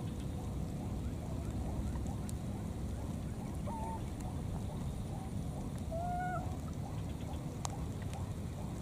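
Steady low rumble with a few short, pitched animal calls, the clearest about four and six seconds in.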